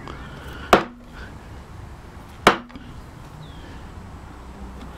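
Wooden mallet striking the handle of a carving gouge twice, about two seconds apart, driving the edge into oak. Each blow is a sharp knock.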